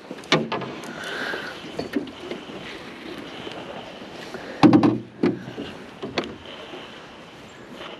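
Knocks and clunks of fishing gear being handled against the hull and floor of a small aluminium boat, the loudest cluster a little past halfway, over a steady hiss.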